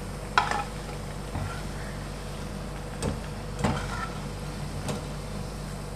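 Pakoras frying in hot oil with a faint steady sizzle, under a low steady hum. A wire skimmer clinks sharply against the metal pan four times, loudest about half a second in, as the fried pakoras are lifted out.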